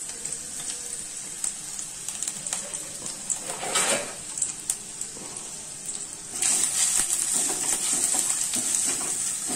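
Sliced onions sizzling in hot mustard oil and ghee in a steel kadai, at the start of frying them into beresta. The sizzling turns louder about six seconds in as the onions are stirred with a wooden spatula.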